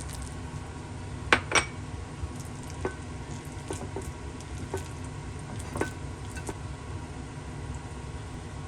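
Kitchen utensils knocking and clinking against cookware and dishes about eight times, the loudest pair about a second and a half in, over a steady low hum.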